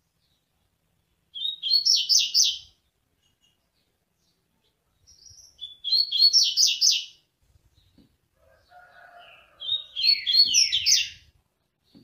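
Double-collared seedeater (coleiro) singing the laranjeira song type: three short phrases, each a fast run of sharp, high notes lasting about a second and a half, a few seconds apart.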